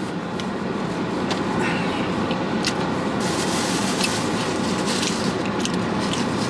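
Car air-conditioning blower running on high, a steady rush of air that grows a little brighter about halfway through, with a few light clicks from a plastic food tray being handled.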